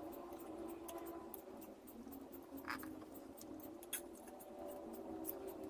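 Soldering gun humming steadily and faintly while the test wires are unsoldered from the subwoofer's terminals, with light scattered clicks and taps of tools handling the wires.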